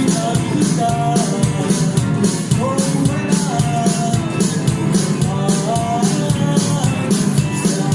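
Live band playing a song: a drum kit keeps a quick, steady cymbal beat over a bass line, with a gliding melody on top.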